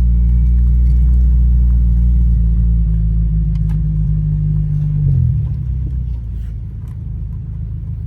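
Honda Civic Si engine and exhaust droning steadily at low revs, heard from inside the car; the note shifts and gets quieter about five seconds in. The car has an exhaust leak, which the owner says can be heard.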